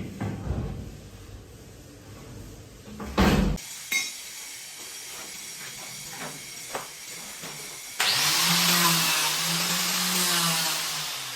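A few sharp knocks, then a power tool running for about three seconds near the end, starting abruptly.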